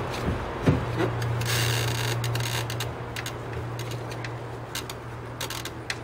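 Hand-work on a well pump's pipe and fittings: a short rasping scrape about a second and a half in, with scattered clicks and knocks of metal, over a steady low hum.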